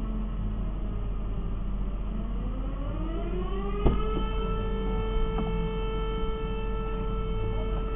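Fire-station alarm siren winding up: its wail climbs in pitch about two seconds in and settles into a steady high tone about four seconds in, the alarm that calls out the volunteer firefighters. A single sharp knock just as it reaches full pitch.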